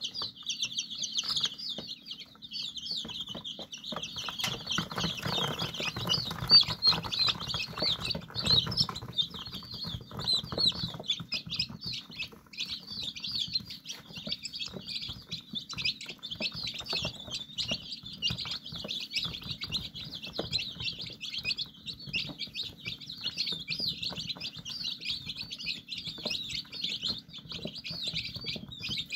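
A brood of five-day-old chicks peeping continuously, many high chirps overlapping. From about four to eleven seconds in, scuffling and light tapping sound under the peeping.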